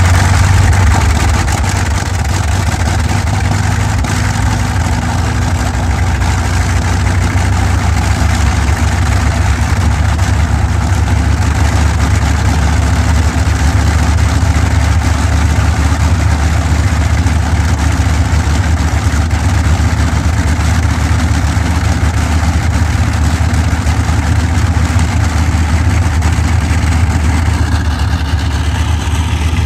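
Bristol Hercules 14-cylinder sleeve-valve radial aero engine on a ground run, driving its propeller with a loud, steady, deep drone that eases slightly about a second in and then holds even.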